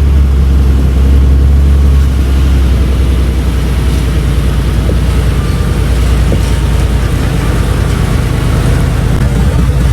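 Heavy diesel engine running loud and low with a steady rumble, a little louder for the first two seconds and then holding steady.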